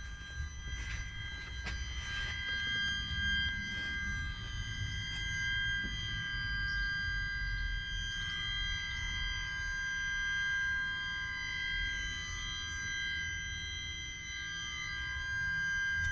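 Mercedes E320 CDI making a weird, steady high-pitched whine, several tones at once, over a low engine rumble.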